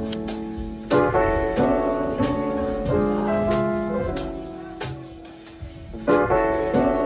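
Piano music: chords struck about once a second and left to ring.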